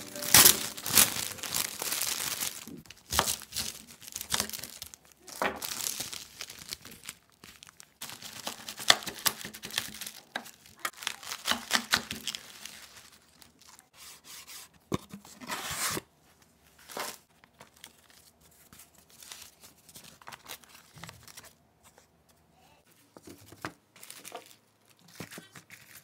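Food packaging being crinkled and torn open by hand, in rough bursts that are busiest through the first half and thin out to scattered light rustles and taps near the end.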